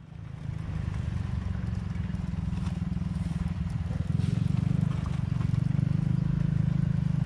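A small engine running steadily with a fast low pulsing, getting louder about four seconds in.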